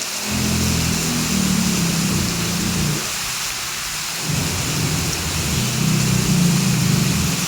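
Heavy rain falling steadily, with a low rumble that swells up twice, from just after the start to about three seconds in and again from about four seconds in to the end.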